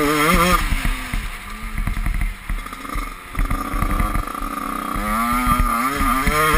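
Dirt bike engine revving while riding on a dirt track: its pitch climbs near the start, drops back as the throttle eases, then climbs again about five seconds in. Scattered knocks run through it.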